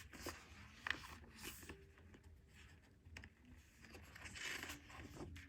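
Faint rustling, with a few light taps and scrapes, from the pages of a photobook being handled and turned.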